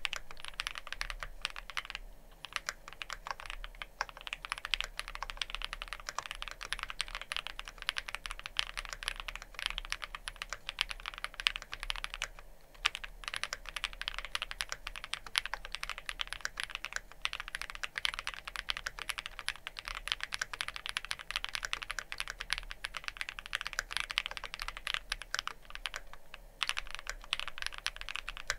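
Fast, continuous typing on a Wuque Studio Freya Ultra custom keyboard: spring-and-gasket mount, aluminium and polycarbonate plate, factory-lubed Kaocera Cupid linear switches and GMK Tenshi keycaps. The keystrokes clack densely, broken by a few brief pauses.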